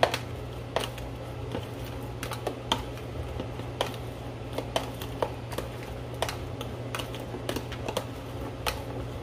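Salad being mixed in a plastic food container: irregular light clicks and taps of the utensil, fingers and vegetables against the plastic, a few a second. A steady low hum runs underneath.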